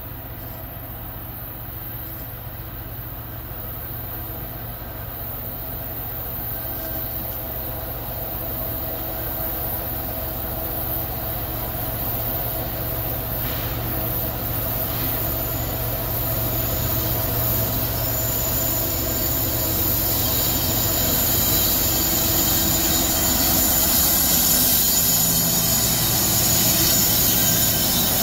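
CSX freight train's diesel locomotive approaching, its engine hum growing steadily louder. Near the end a high wheel squeal rises as the train rounds the curve and comes alongside.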